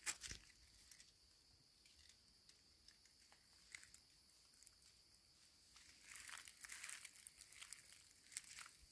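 Footsteps crunching faintly in dry fallen plane leaves: a few light crackles, then a short stretch of louder rustling about six seconds in, with near silence between.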